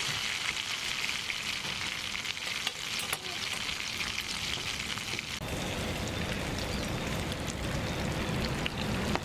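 Bakwan batter sizzling and crackling as it fries in hot oil. About five seconds in, the sound changes abruptly and a steady low rumble comes in under the sizzle.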